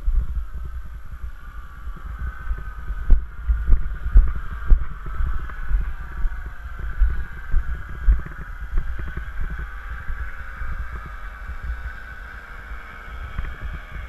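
Wind buffeting the microphone in uneven gusts, over the steady drone of a paramotor's engine and propeller.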